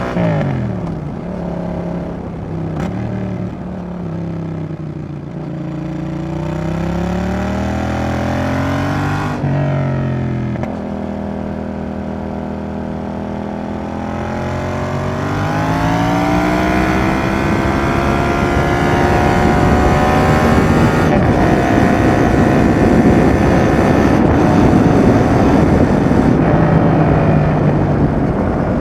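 Yamaha XSR700's parallel-twin engine through a Roadsitalia Double Fire aftermarket exhaust, ridden on the road. The revs fall in the first few seconds and drop sharply about nine seconds in, then climb steadily under acceleration and hold high and louder through the second half.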